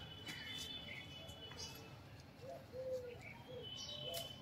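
Birds calling faintly: short high chirps and thin high whistled notes, with a run of about four low cooing notes in the second half.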